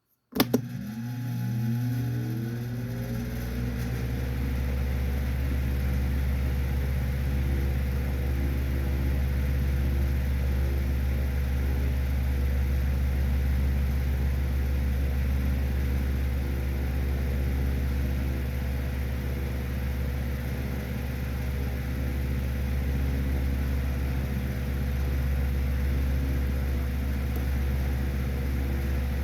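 Rusted desktop fan switched on with a click, its motor spinning up with a rising whine over the first few seconds, then running steadily with a loud low hum and rumble.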